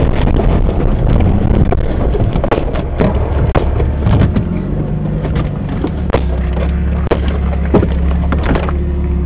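Jeep Wagoneer engine: a rough rumble with wind noise that settles about halfway through into a steady idle. Scattered short knocks and clicks run through it.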